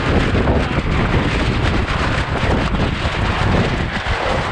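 Loud, steady wind buffeting the microphone of a tiller-mounted GoPro Hero7 aboard a Flying Scot sailboat under way in a fresh breeze.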